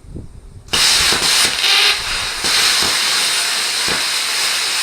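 Plasma cutter starting up about a second in and cutting into a steel steering column shaft, a loud steady hiss of the air and arc with small breaks.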